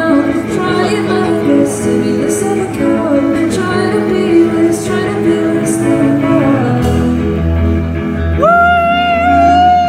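Indie rock band playing live: electric guitar and band with a woman singing lead. A heavier bass line comes in about seven seconds in, and near the end the singer holds one long note for about a second and a half.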